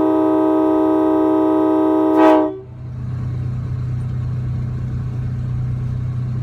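Nathan Airchime K5LA five-chime train horn sounding a steady chord, which swells briefly and cuts off about two and a half seconds in. A steady low hum of the vehicle's engine running is left after it.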